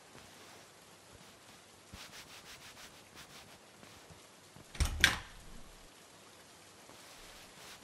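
Faint, evenly repeated scraping or rubbing strokes, then two sharp thuds about a quarter second apart, roughly five seconds in.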